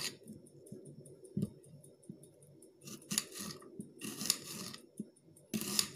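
Kitchen knife cutting a peeled onion into half-rings on a plastic cutting board: a dull knock about a second and a half in, then a few crisp crunching cuts from about halfway.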